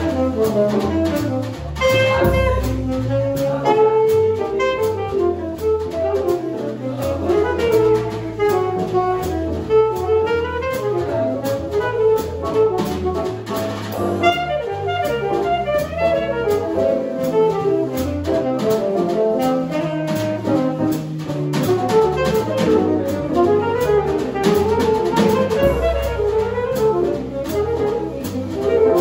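Live jazz quartet playing: alto saxophone carrying a melodic line over piano, electric bass and drum kit with cymbals.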